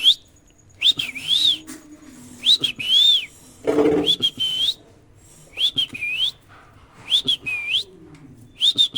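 Parrot whistling a short phrase of gliding notes, repeated about every one and a half seconds. A brief lower-pitched sound comes about four seconds in.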